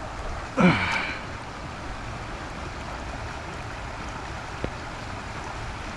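Shallow creek water running steadily over gravel, with a short vocal sound a little over half a second in.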